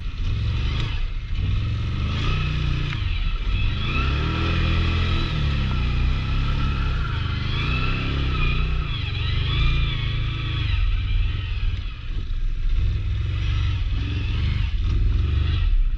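Big-bore ATV engine running under load and revving, its pitch rising and falling several times over a steady low rumble.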